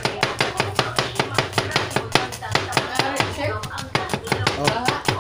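Chef's knife rapidly slicing a red onion on a plastic cutting board, the blade striking the board in an even rhythm of about six strokes a second.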